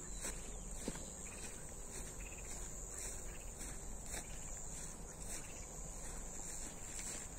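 Chorus of crickets in grass, a steady high-pitched trill that does not let up.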